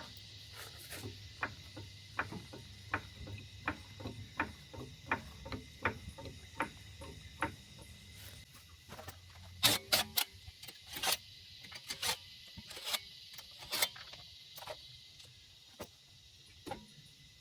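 Ratchet wrench clicking steadily at about two to three clicks a second while the wheel nuts on a car are undone, with a run of louder, sharper clicks about halfway through.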